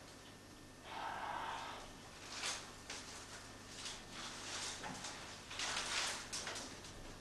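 Wicker rods rustling, creaking and scraping against each other as they are bent and woven by hand into a traditional lobster pot. The sound comes in a series of short, irregular bursts, with a longer scrape about a second in.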